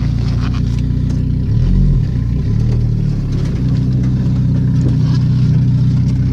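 1996 Chevrolet Cavalier's four-cylinder engine running cold after two years of sitting, with a brief swell in the engine note about a second and a half in before it settles to a steady run.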